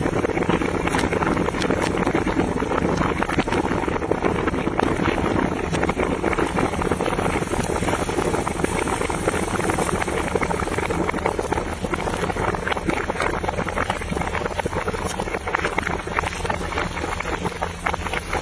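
Dense, steady crackling and sizzling from a large wok of popcorn over a wood fire, as a liquid coating is poured onto the hot popcorn.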